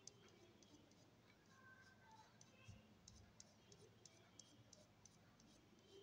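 Faint, quick scratching of a graphite pencil on drawing paper: short shading strokes darkening the hair, heard as irregular soft ticks a few times a second.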